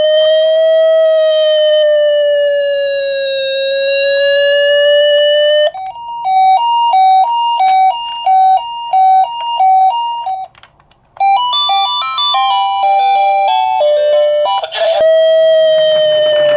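Ambulance siren: a slowly wavering wail, then about five seconds in a two-tone hi-lo pattern alternating about twice a second, like a Japanese ambulance's "pii-poo". After a short break, a run of stepped beeping notes, and the wail returns near the end.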